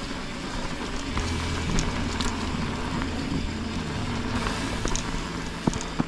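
Mountain bike riding down a dirt singletrack: wind rumbles on the camera microphone over the crunch and crackle of tyres on dirt and dry leaves, with scattered clicks and rattles from the bike and one sharp knock near the end.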